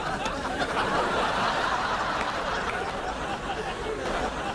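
Audience laughter, a steady crowd of many people chuckling and laughing together.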